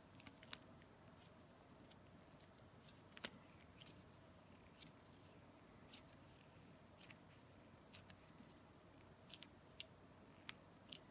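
Faint plastic crinkles and ticks from a treat packet being handled, about a dozen short sharp sounds at irregular intervals over a near-silent room.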